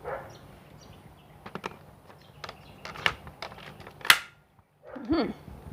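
Several sharp plastic clicks and knocks, the loudest about four seconds in, as parts of a Dyson V10 cordless stick vacuum are handled and clicked together.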